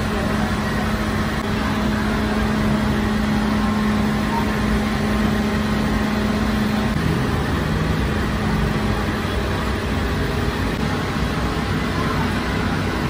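Steady machine drone of bakery machinery, with a low hum that fades away around seven to nine seconds in.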